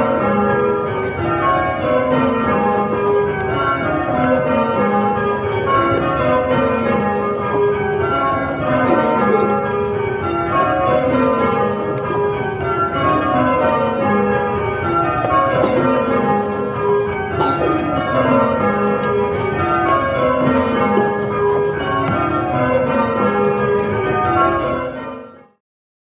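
A ring of eight Gillett and Johnson church bells rung full-circle in rounds, sounding again and again in a descending scale from treble to tenor. The ringing cuts off abruptly near the end.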